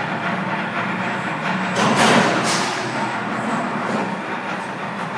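Steady factory machinery noise with a constant low hum, and a louder rough handling noise about two seconds in, followed by fainter ones.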